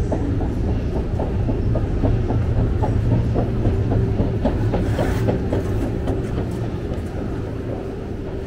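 Metro escalator running: a steady low rumble with rapid, regular clacking of the moving steps, easing off near the end.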